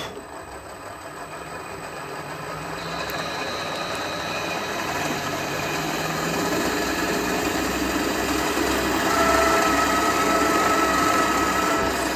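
Drilling machine running a freshly hand-sharpened 3/8-inch twist drill into a metal block. The cutting noise grows louder as the bit feeds in and throws curling chips, and a steady high squeal joins it from about nine seconds in.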